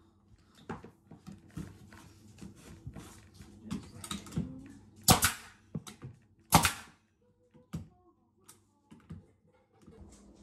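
Pneumatic trim nailer firing twice, about a second and a half apart, driving nails into wooden door casing trim. Before the shots come light taps and knocks from the trim being handled.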